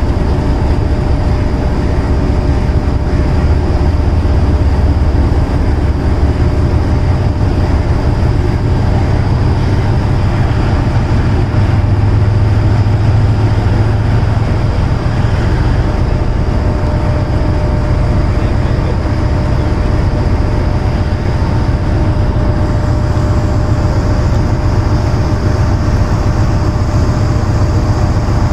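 Diesel shunting locomotive's engine running steadily close by, a deep rumble with a thin steady whine over it.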